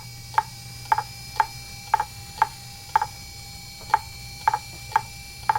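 Regular sharp ticking, about two ticks a second, over a steady low hum and a faint steady whine.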